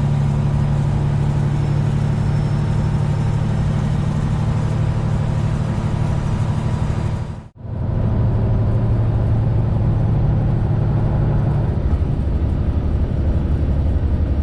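Semi-truck diesel engine running steadily, heard from inside the cab while driving, with road noise underneath. About halfway through the sound cuts out for a moment, then the engine resumes at a lower pitch.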